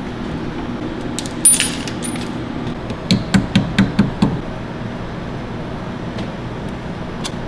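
Steel sockets and hand tools clinking. One ringing metallic clatter comes about a second and a half in, then a quick run of about six sharp clicks around three to four seconds in.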